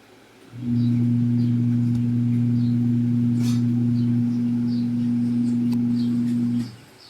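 A loud, steady low hum that starts about half a second in, holds one unchanging pitch and cuts off sharply about six and a half seconds in.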